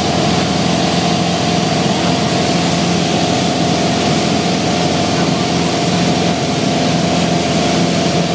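Piper Warrior's four-cylinder Lycoming engine and propeller running at a steady, unchanging pitch, heard from inside the cockpit as a constant drone.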